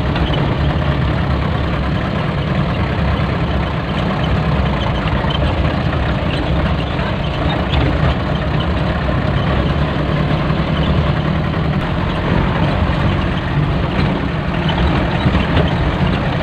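A 2004 Mitsubishi Canter truck's diesel engine running steadily, heard from inside the cab as it drives over a rough stone-and-dirt track.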